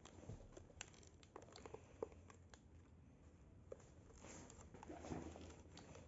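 Faint rustling and scattered small taps of a dog nosing and pushing a fabric snuffle ball across the floor, the rustle thickest about four to five seconds in.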